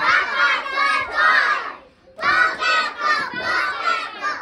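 A group of young children chanting a children's haka in unison, shouted in short rhythmic phrases, with a brief pause about two seconds in.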